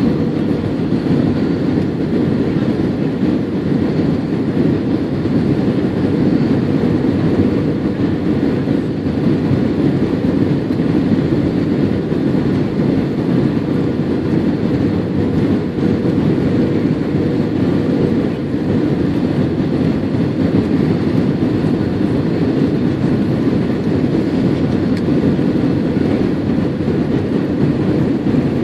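Steady cabin noise inside an Airbus A320-232 on approach: the rush of air over the fuselage and the drone of its IAE V2500 engines, with a faint steady hum, unchanging throughout.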